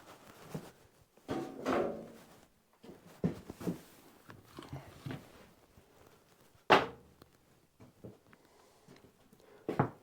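Scattered knocks and clunks of items being handled and put back up on the shop wall, with one sharp knock about two-thirds of the way through.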